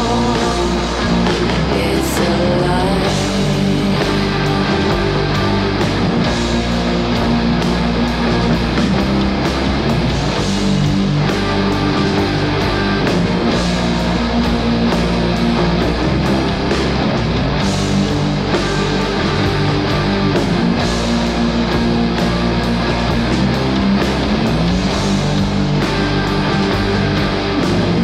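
Noisy indie post-rock song playing in an instrumental stretch between sung lines: distorted rock guitars over a steady drum beat, with held notes.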